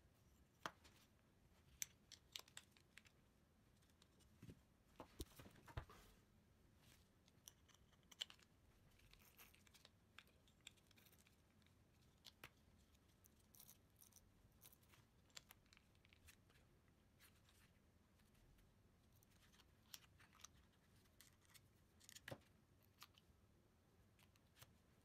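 Near silence broken by faint, scattered clicks and rustles of small plastic and metal parts being handled: a gear, bearings and a metal motor plate fitted onto the plastic housing of an RC car gearbox.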